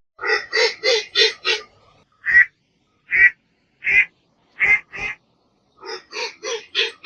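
Duck quacking: a quick run of about five quacks, then a string of single calls spaced out by about a second, then another quick run of quacks near the end.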